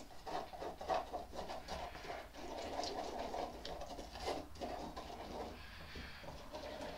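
Silicone spatula stirring and scraping wet cement mix around a silicone mixing bowl, a continuous run of short soft scrapes. A little extra water is being worked into cement that had started to set.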